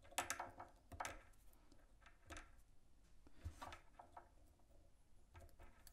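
Faint, scattered clicks and rubbing of fingers working tying thread and materials on a fly-tying vise.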